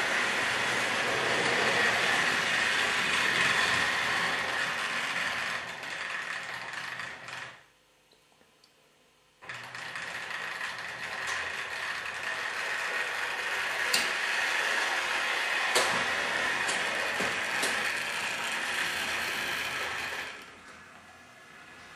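Trix Express H0 model trains running: a steady whir of small electric motors and gears with a few sharp clicks of wheels over track joints and points. The running sound drops out for about two seconds a third of the way in, then resumes, and fades lower near the end.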